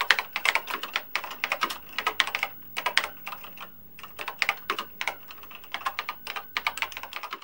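Computer keyboard typing sound effect: quick runs of key clicks, with a short lull about halfway through, matching text typed out on screen.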